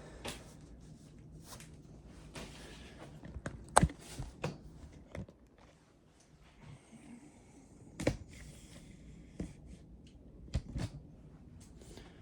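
Handling noises: rustling with a scattered run of sharp clicks and knocks, the loudest about four seconds in and another about eight seconds in.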